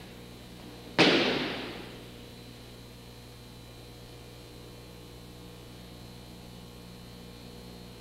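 An aikido partner landing a breakfall on the mat after a throw: one sharp slap about a second in that dies away over about a second. A steady mains hum runs underneath.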